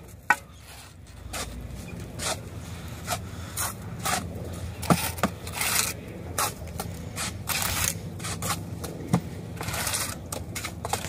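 Mason's trowel scraping and spreading mortar along the top of a concrete block wall, in quick irregular strokes with a few sharper knocks.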